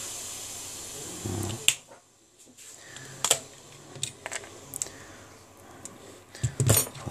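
Plastic snap clips of a bq Aquaris 5 HD smartphone's rear frame clicking loose as the frame is pried off with a metal pick: several sharp, irregularly spaced clicks.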